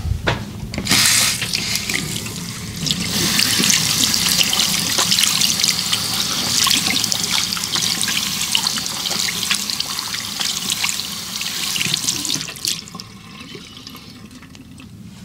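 Running water, a steady splashing hiss that starts about a second in and stops a couple of seconds before the end.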